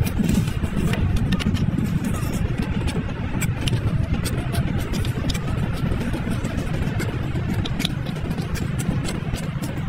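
Eating mantis shrimp: frequent short sharp clicks and cracks of shell being chewed and sucked, over a steady low rumble.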